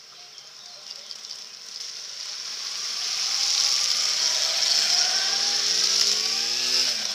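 Motorcycle splashing through a shallow ford: the hiss of water spray builds over a few seconds, with the engine's note rising as the bike comes close. The sound drops away at the end.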